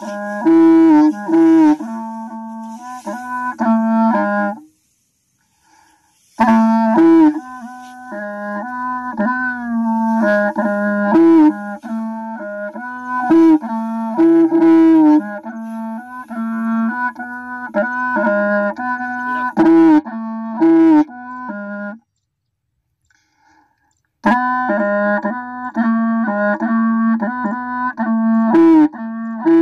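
Instrumental music: a melody line over a steady held lower note, breaking off twice for about two seconds each.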